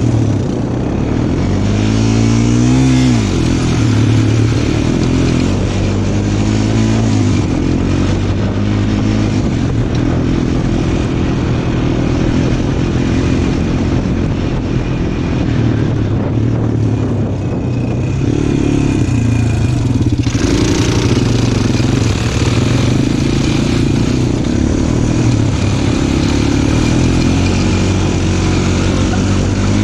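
Small off-road vehicle engine, an ATV or go-kart, running under way and revving, with a rise and fall in pitch about two to three seconds in.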